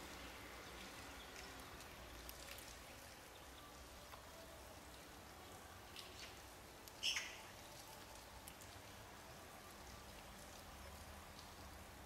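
Near silence: faint outdoor background with scattered soft ticks, and one short high-pitched call about seven seconds in.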